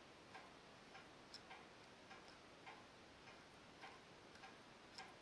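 Faint, light clicks, roughly two a second and slightly irregular, from the gear unit of a Sachs Pentasport 5-speed bicycle hub being turned and worked by hand on its shift rod.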